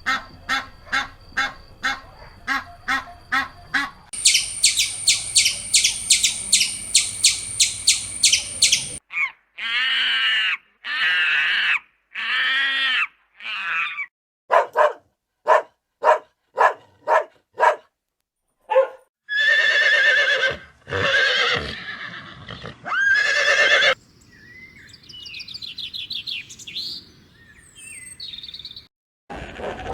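A run of different animal calls cut one after another: first evenly repeated chirps, then fast high-pitched chirping, then series of short pitched calls, ending with fainter chirps.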